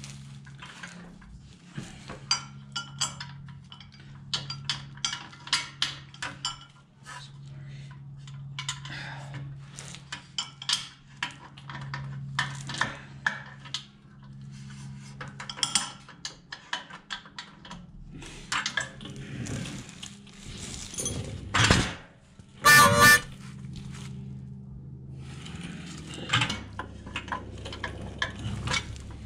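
Metal clinking, tapping and rattling as a chrome motorcycle exhaust pipe is worked into place against its brackets and mounting hardware, with two louder knocks about three-quarters of the way in, under a steady low hum.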